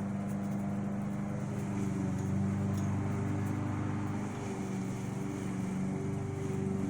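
Steady low machine hum with a few held tones, running evenly.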